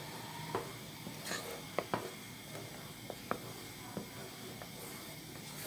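Wooden spatula stirring a thick, hot milk mixture in a nonstick pan, with a few light taps and scrapes against the pan over a faint steady hiss.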